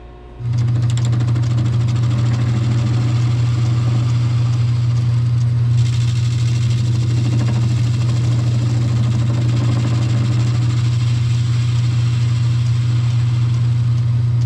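Metal lathe switched on, its motor running with a loud, steady low hum. From about six seconds in a brighter hiss joins as the tool faces the end of a welded steel crankshaft web that has hardened areas from the welding.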